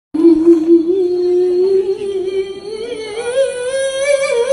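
A single voice holding one long sung note that slowly rises in pitch, with a wavering ornament on it near the end.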